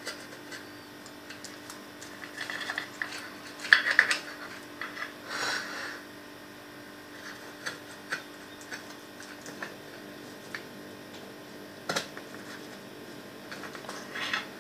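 A knife cutting into a cheesecake on a plate: faint scrapes and a few sharp clicks of the blade against the plate, over a steady low hum.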